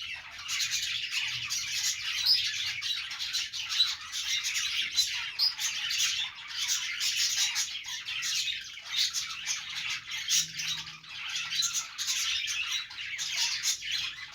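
Budgerigars chattering and chirping steadily, a dense run of quick warbling notes and squawks with no pause.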